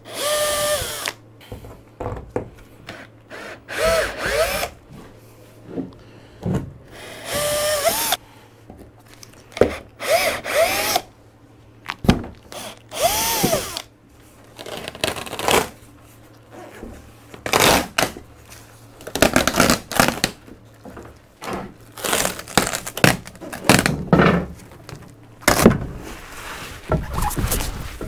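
Cordless drill run in about five short bursts, the motor pitch rising and falling with each trigger pull, as it drills into the fiberglass roof at a crack. After that, a run of short knocks and noisy bursts.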